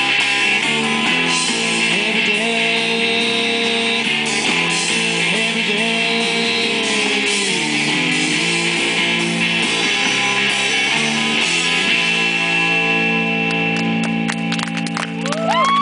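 Small rock band playing live: electric guitars through amplifiers over a drum kit.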